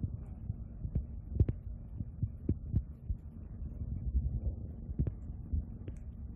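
Cat nibbling and rubbing its head against a hand close to the microphone: irregular soft knocks and clicks over a low, steady rumble.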